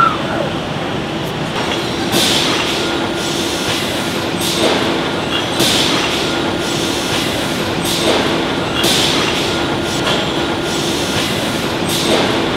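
Brickworks machinery running: a steady mechanical din with a low drone, broken every second or two by short sharp bursts of hiss and clatter.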